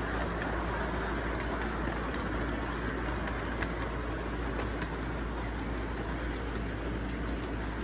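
Model train rolling along its track: a steady rumble with a few faint clicks, over constant background noise.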